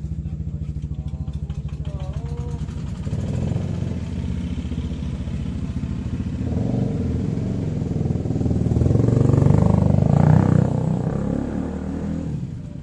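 Small engine running with a fast, even pulsing beat. It grows louder from about eight seconds in, peaks near ten seconds, then eases off.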